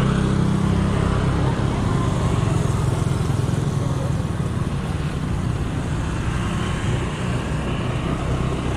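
Steady road traffic noise from small motorcycles running close by, dense and low-pitched, easing slightly in the second half.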